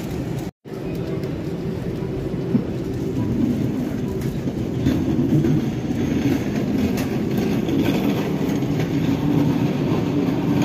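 Steady low rumbling background din that is fairly loud throughout, cut to silence for a split second about half a second in.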